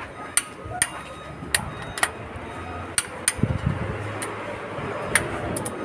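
Ratchet torque wrench clicking in sharp, single clicks about every half second to a second while cylinder head bolts on a FAWDE CA4DF3 diesel are tightened.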